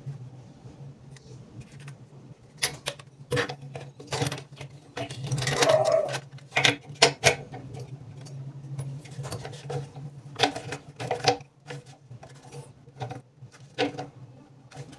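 Plastic sink wrench clicking, knocking and scraping against metal nuts and fittings under a bathroom basin as a fitting is tightened. The clicks come irregularly, with a longer rasp about five to six seconds in, over a steady low hum.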